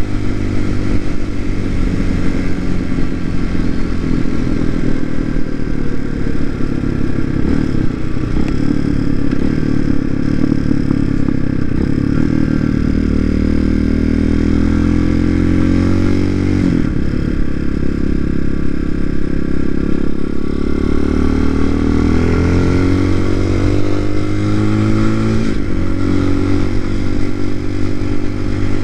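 TaoTao TBR7 motorcycle's single-cylinder engine running under way, its pitch dropping sharply about halfway through and again near the end, and climbing steadily as it revs up in between.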